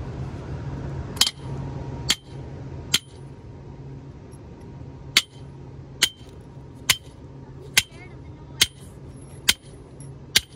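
Sharp, ringing metallic clinks, struck ten times: three spaced about a second apart, then a steady run of roughly one a second, over a low steady hum.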